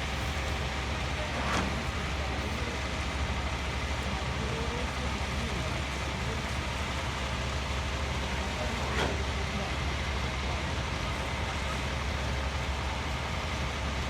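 Heavy diesel construction machinery running steadily with a deep hum, with two brief sharp knocks, one about a second and a half in and one about nine seconds in.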